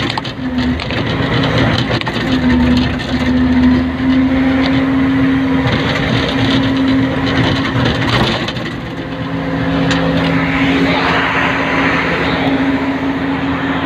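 Excavator's diesel engine and hydraulics running steadily, heard from inside the operator's cab, with a constant pitched hum and scattered knocks and rattles.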